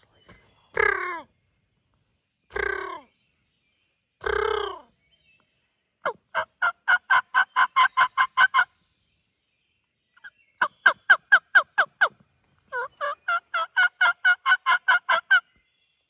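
Wild turkey calling: three loud calls about two seconds apart, each made of falling notes, then three quick runs of short yelping notes at about five a second.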